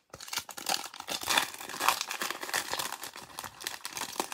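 Foil wrapper of a Panini Prizm football card pack crinkling in gloved hands as it is torn open, a dense run of fine rapid crackles.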